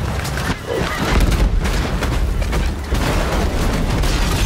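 Film sound effects of a bird strike on an airliner: a rapid volley of thuds and bangs as birds hit the aircraft, over a low jet rumble.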